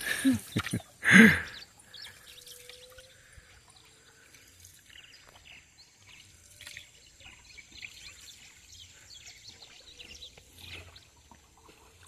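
A brief loud vocal call at the start, then water trickling and dripping with scattered small splashes, and birds calling faintly in the forest.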